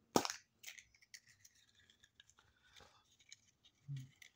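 Hands opening a chocolate surprise egg's wrapper and small plastic toy capsule: a sharp crackle just after the start, then light plastic clicks and rattles, with a short low hum from the man near the end.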